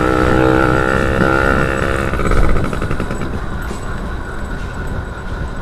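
Yamaha F1ZR two-stroke motorbike engine running steadily while riding, its even note easing off after about two seconds into a rushing wind and road noise, with a low thump about two and a half seconds in.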